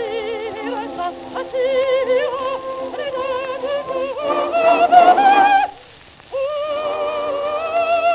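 A contralto singing on an old record, the sound thin and narrow with surface hiss. Her voice has a quick, even vibrato and sings in a bright tone. It breaks off briefly about six seconds in, then goes into a long held note.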